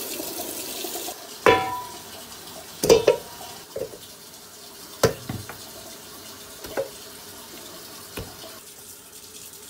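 Tap water running over pig's trotters in a stainless steel sink, cut off about a second in. Then a series of irregular knocks as chunks of trotter are dropped into and shifted around a stainless steel bowl, the bowl ringing briefly after the first knock.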